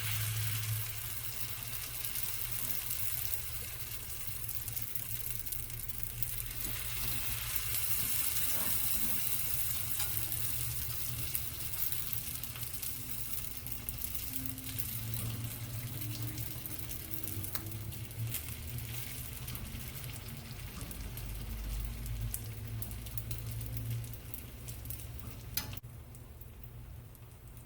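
Chicken samosas deep-frying in hot oil: a steady sizzle with scattered pops and crackles, dying down near the end. A steady low hum runs underneath.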